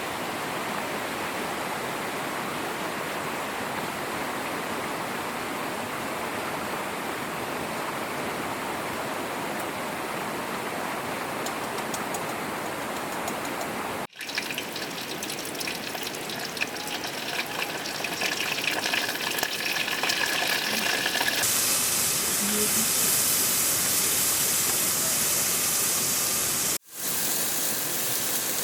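Steady rush of flowing river water. It is cut off abruptly twice, about halfway and near the end, and sounds brighter and hissier in the last part.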